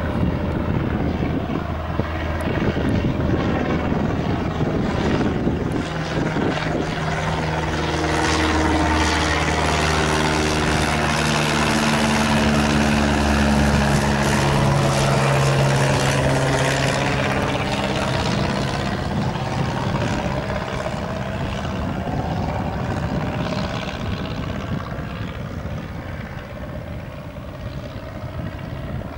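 Cessna 172R Skyhawk's four-cylinder piston engine and propeller droning at takeoff climb power as it flies overhead. The sound builds to its loudest about halfway through, then drops in pitch and fades as the plane climbs away.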